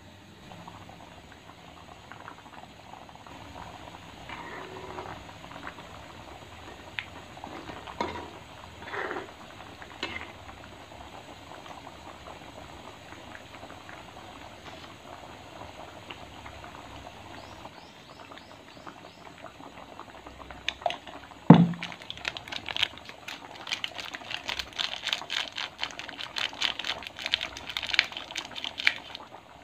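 Fish curry boiling in an aluminium wok. The bubbling turns into dense, rapid popping in the last third, and there is a single loud knock about two-thirds of the way through.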